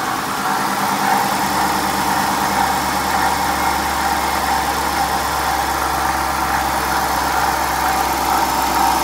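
Dodge Durango's 5.7L Hemi V8 idling steadily, with a rattly noise from the water pump. The pump is failing: it neither leaks nor overheats, but it rattles whenever the engine runs.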